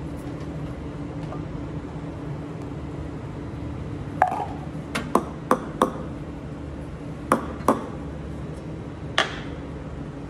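Steel milk pitchers and a ceramic cup being handled, with about eight sharp clinks and knocks between the middle and near the end, some ringing briefly. A steady low hum runs underneath.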